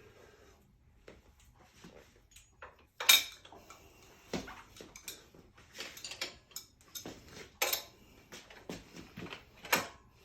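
Metal tools and bottom-bracket parts clinking and knocking together in irregular single strikes, the loudest about three seconds in, as the Klein extraction tool works the press-fit bearings out of the bottom bracket.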